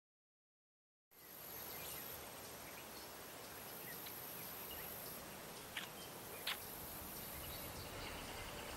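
Faint outdoor nature ambience that begins about a second in: a steady high insect drone with a couple of short bird chirps around the middle.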